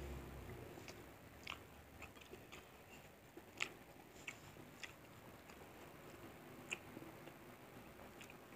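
Faint close-up eating sounds: a person chewing fried fish and rice eaten by hand, with scattered short clicks and mouth smacks.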